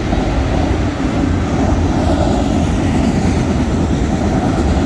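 Long string of freight autorack cars rolling past on the rails, a steady rumble of wheels on track.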